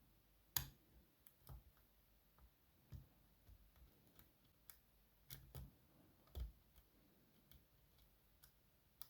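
Faint, irregular small clicks and ticks of a short hook pick working the pins of an ASSA 500 pin tumbler lock held under tension. The clicks come about a dozen times at uneven spacing, with the sharpest about half a second in and another near six and a half seconds.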